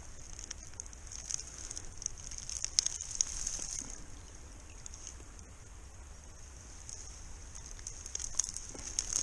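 Hands rummaging in wet reeds and watercress at the water's edge, making scattered crackles, rustles and light splashes, with a cluster about three seconds in and more near the end, over a steady high hiss.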